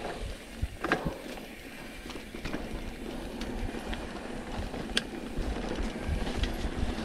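Mountain bike rolling down a dirt singletrack: tyre noise on the dirt with scattered clicks and rattles from the bike, and a low rumble building toward the end.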